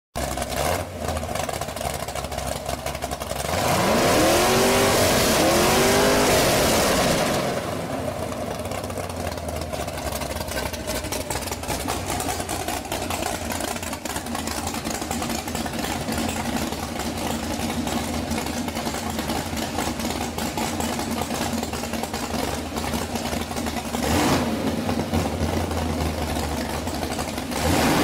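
Chevrolet 572 big-block V8 idling, revved up and back down about four seconds in, then blipped again twice near the end.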